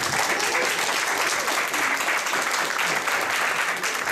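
Audience applauding: dense, steady clapping from a crowd, with a few voices faintly underneath.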